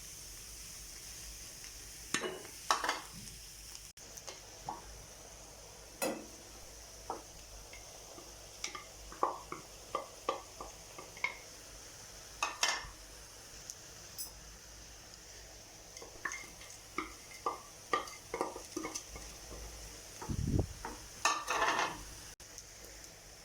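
Cooking in a kitchen: a utensil stirring, tapping and clinking against cookware at an irregular pace, over a steady sizzle of frying.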